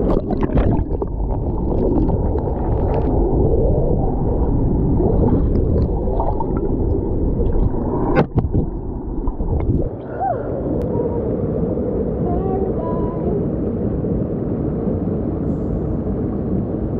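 Water splashing and gurgling around a camera dipped in and out of a river pool, heard muffled and dull as if underwater. About two-thirds of the way through it gives way to the steady rush of water pouring over a rock cascade.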